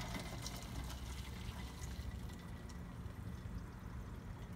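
Beef broth pouring from a metal pot through a wire-mesh strainer into a bowl, a faint, steady pour.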